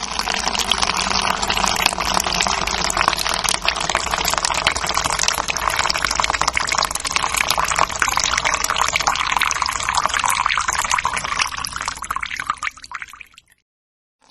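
A stream of urine splashing into the water of a toilet bowl, steady and strong, tapering off and stopping about a second before the end.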